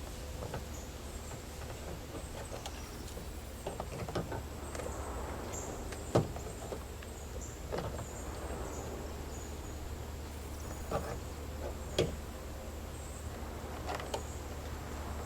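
Scattered clicks and knocks of a seatbelt retractor being handled and pushed into its mount, with a sharper knock about six seconds in and another about twelve seconds in, over a steady low hum.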